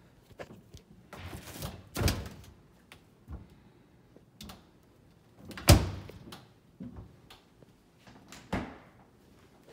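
Side-by-side refrigerator doors being opened and shut: a few thumps with rustling handling noise between, the loudest thump about halfway through.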